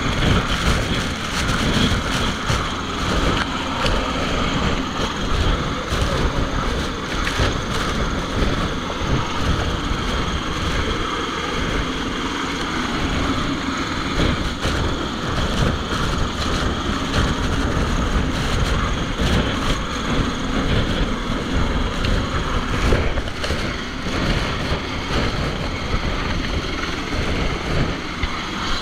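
A small boat's engine running steadily under way, mixed with wind and water noise.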